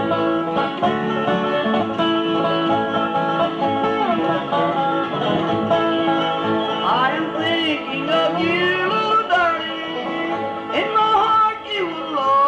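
A bluegrass band playing live, with banjo, guitar, fiddle and upright bass.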